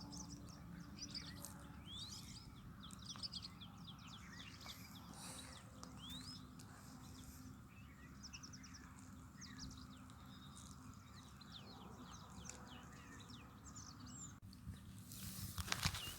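Many small birds chirping and calling in quick short notes over a faint low rumble. Near the end the chirps give way to a louder rushing noise.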